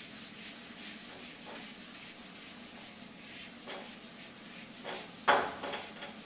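Whiteboard duster rubbing across a whiteboard in repeated wiping strokes as writing is erased, with one sharp knock about five seconds in.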